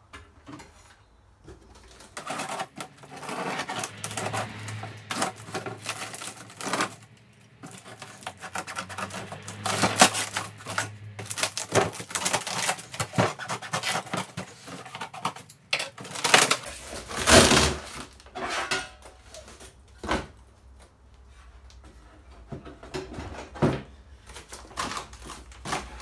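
A taped cardboard box being torn open by hand: packing tape ripped away and cardboard flaps tearing and rustling in irregular bursts, loudest about ten, thirteen and seventeen seconds in.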